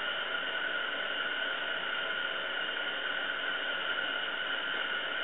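Steady background hiss with two faint, constant high-pitched tones, and no distinct sound event.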